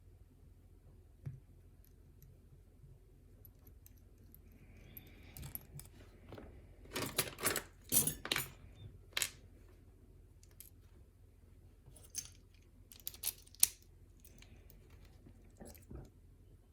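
Small metal clicks and rattles of a lock and its key being handled, as the lock is locked back up: a quick cluster of sharp clicks about halfway through and a few more scattered clicks a few seconds later.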